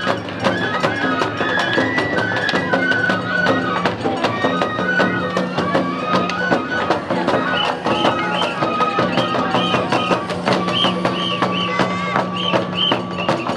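Traditional Japanese festival music for a lion dance: a high bamboo flute melody over rapid, steady drum and percussion beats.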